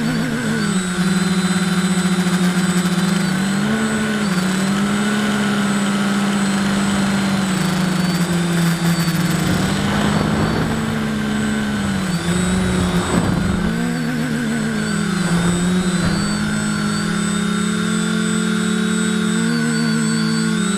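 Drone's motors and propellers buzzing, heard from the camera on board: a steady hum whose pitch dips and swells several times as it manoeuvres, with brief rushes of wind on the microphone.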